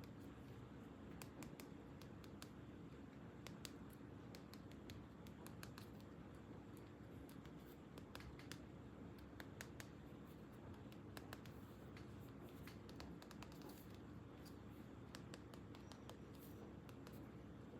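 Faint, scattered small clicks and taps, typical of hands handling plastic toys and packaging, over a low steady hum.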